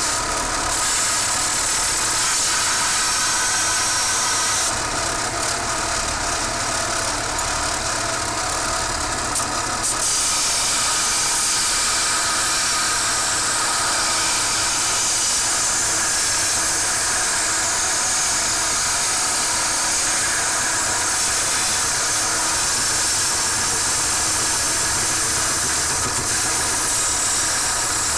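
Belt grinder running, its abrasive belt grinding the steel jaw of a pair of limb clippers to sharpen it: a steady hissing rasp of metal on the belt over the machine's steady tone, turning harsher for a few seconds about five seconds in.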